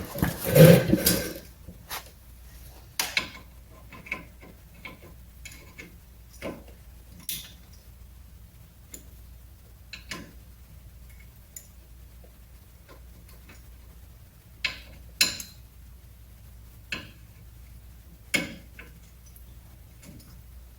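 Metal hand tools and brake parts being handled: a louder clatter at the start, then scattered short metallic clinks and clicks at irregular intervals.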